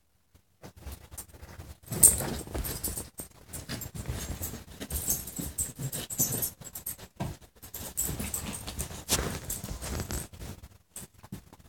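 A dog moving close to the microphone: irregular clicks, scuffs and rustles with jingling collar tags, loudest about two seconds in.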